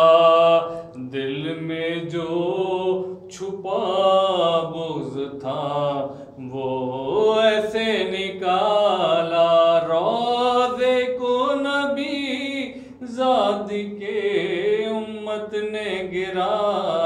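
A solo voice chanting a devotional recitation in long, melodic phrases with brief pauses for breath, without instruments.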